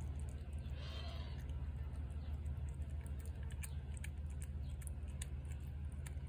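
A cat eating from a plate: small irregular wet clicks and smacks of chewing and licking, over a steady low hum.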